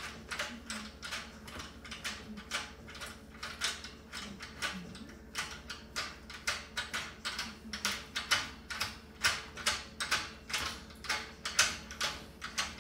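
A small hand tool turning a bolt at the corner of a metal cart frame: a rapid, irregular series of short metallic clicks and scrapes, about two to three a second, a little louder in the second half.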